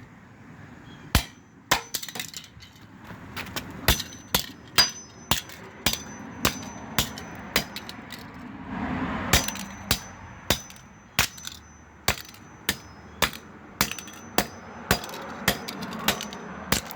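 Repeated hard blows smashing plastic toy cars: sharp, separate knocks at an uneven pace of about one or two a second.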